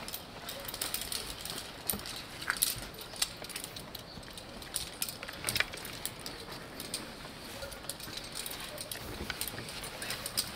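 Metal buckles and carabiners on via ferrata climbing harnesses clinking and clicking irregularly as the harnesses are put on and tightened.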